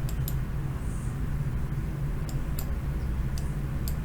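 Steady low hum with a few faint, short clicks scattered through it.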